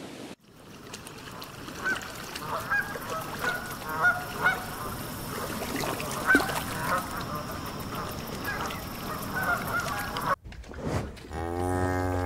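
Black swans calling: a run of short, high honking calls over a steady outdoor background for most of the stretch. Near the end a cow moos once, a long low call.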